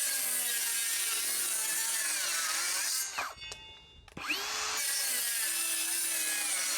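Brushless 18-volt cordless circular saw running through thicker wood at a steady, unlaboured speed: it is not struggling. About three seconds in the trigger is released and the blade winds down, then a second later the saw spins up again and runs steadily.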